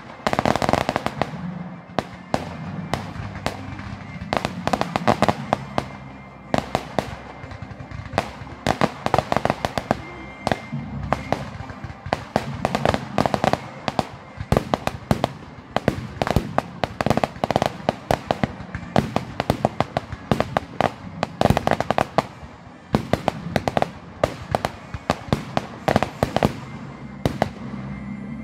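Fireworks display: aerial shells bursting with dense, rapid crackling and many sharp pops throughout, coming in clusters.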